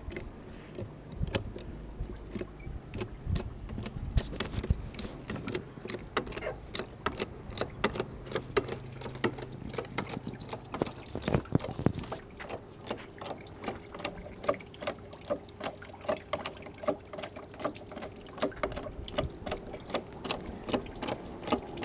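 Hydraulic bottle jack being pumped by hand with a long pipe handle, clicking and clacking about twice a second with each stroke as it presses apple pulp in a wooden cider press.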